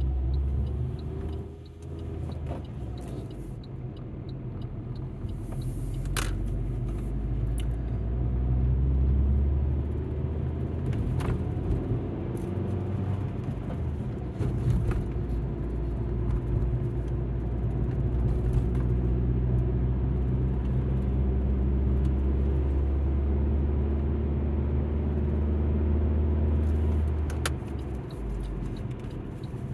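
Alfa Romeo MiTo driving: a low engine and road rumble whose engine note rises and falls, with a few sharp clicks.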